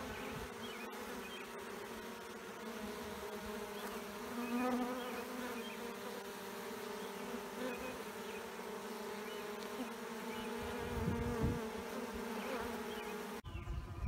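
Honey bees buzzing close up at the hive: a steady hum of several overlapping pitches that swells briefly now and then.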